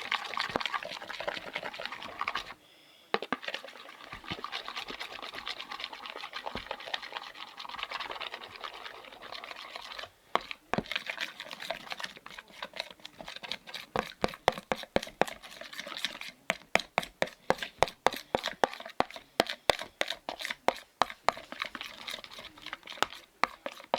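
Glue and red food colouring being stirred in a bowl: a soft, wet scraping for about ten seconds, then quick repeated clicks of the stirring utensil against the bowl.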